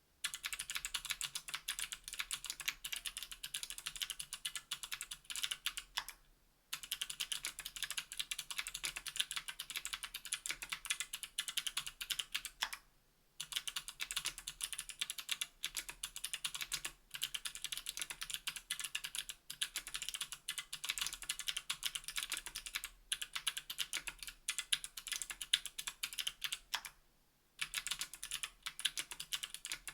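Fast typing on a KBDfans Tofu 60% aluminium mechanical keyboard with clicky NovelKeys Sherbet click-bar switches, an aluminium plate and GMK keycaps. Dense, rapid, crisp key clicks, broken by three brief pauses.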